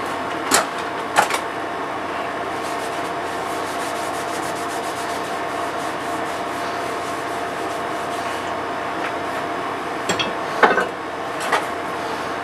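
Gloved hand rubbing boiled linseed oil into a wooden axe handle, over a steady hum. A few sharp knocks come about half a second and a second in, and again around ten to eleven seconds in.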